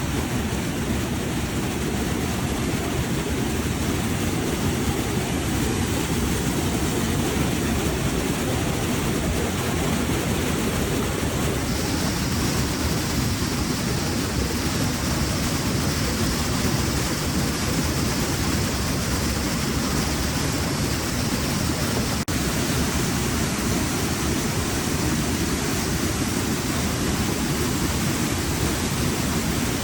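Steady, even rush of water in a heavy monsoon downpour: rain together with fast-flowing stream water.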